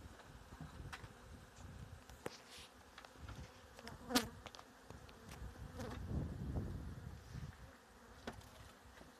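Honeybees buzzing around small mating nucleus hives, with light knocks from wooden hive parts being handled. A short loud burst, close to the microphone, about four seconds in.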